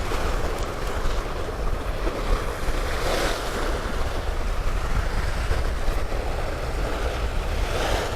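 Sea waves washing against coastal rocks, with wind buffeting the microphone as a steady low rumble; the surf swells a little about three seconds in.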